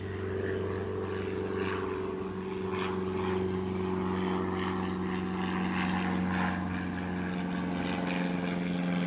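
A steady machine hum, holding one pitch throughout, with fainter irregular sounds over it.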